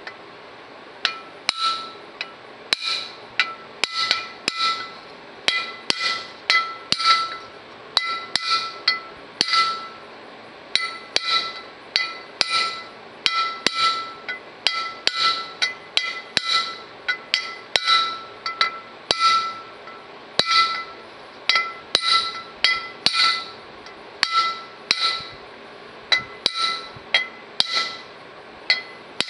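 Hammer tapping a copper punch to drive a new bushing into the bore of a John Deere 4400 combine's center drive pulley: light repeated taps, often in pairs or threes at about one to two a second, each with a short metallic ring.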